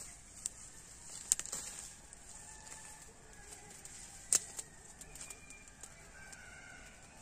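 Small smouldering wood fire giving two sharp snaps, about a second in and again about four seconds in, over quiet outdoor background with faint bird calls.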